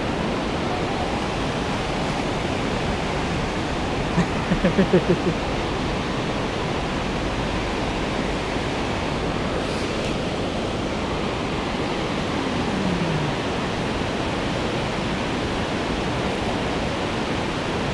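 Steady, even rush of flowing river water. A brief pulsing sound with a clear pitch, louder than the water, comes about four seconds in, and a short falling tone about two-thirds of the way through.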